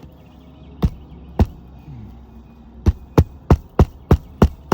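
Roofing hammer driving a roofing nail into an asphalt shingle: two single blows, then a steady run of blows about three a second as the nail is set, aimed at a flush nail head under the lifted shingle.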